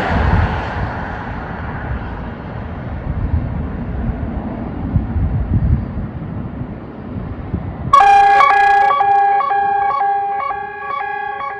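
Low rumbling background noise, then about eight seconds in a Klaxon ES3S 12-horn siren starts sounding its Hi-Lo emergency test tone: two pitches alternating a few times a second.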